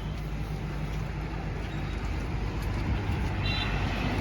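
Steady low rumble of outdoor background noise, with a brief high chirp about three and a half seconds in.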